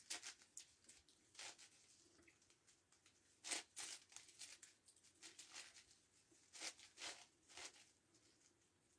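Faint plastic clicking and rattling of a 9x9x9 Rubik's Cube's layers being turned by hand, in irregular quick bursts, the loudest about three and a half seconds in.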